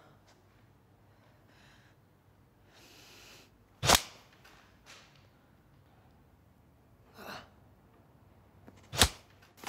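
Two sharp smacks of blows landing, about five seconds apart, between heavy breathing with a breathy hiss of a sharp exhale a little before the first smack.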